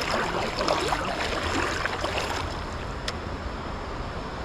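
Stream water splashing and rushing as someone wades through it, with a low rumble underneath.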